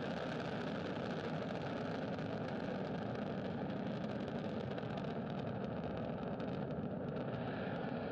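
Falcon 9 first-stage engines firing during ascent: a steady, dense rumble with crackling about five seconds in.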